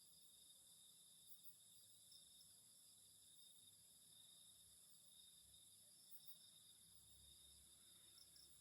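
Near silence with a faint, steady chorus of night insects: several high trills held without a break.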